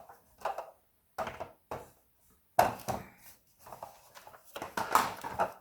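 A plastic toy car being handled: a series of short knocks and clicks, with a sharper knock about halfway through and busier clattering after it.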